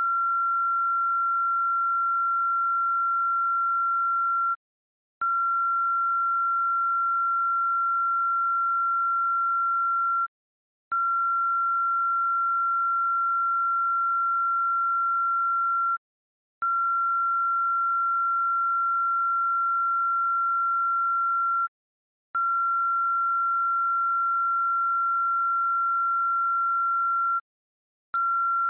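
A steady high-pitched electronic tone on a single pitch, held about five seconds at a time and broken by a half-second gap about every five and a half seconds.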